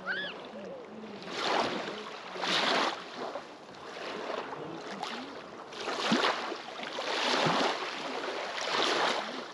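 Small wind-driven waves of a glacial lake washing up on a pebble beach, each one a swell of splashing and rattling over the stones. The swells come every second or so, five or six of them, the loudest about six seconds in.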